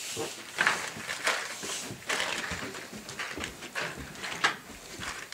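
Footsteps going down carpeted stairs, a series of irregular soft thuds with some rustle.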